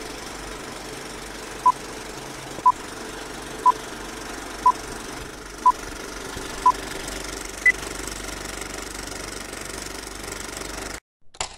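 Film-leader countdown sound effect: a steady film-projector clatter and hiss with a short beep about once a second, six at one pitch followed by a single higher beep. The sound cuts out briefly near the end.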